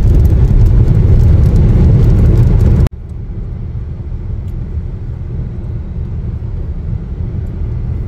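Road noise of a moving car: a loud, dense rumble that cuts off abruptly about three seconds in, switching to a quieter, steady low rumble of the car driving on.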